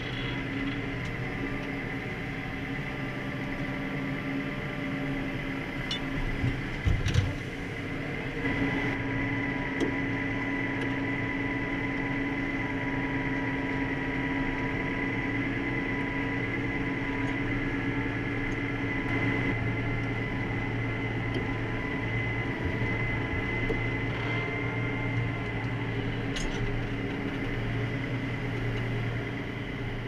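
New Holland tractor running steadily under load while pulling a plough, heard from inside the closed cab as a constant drone with a high whine over it. A few knocks come about seven seconds in.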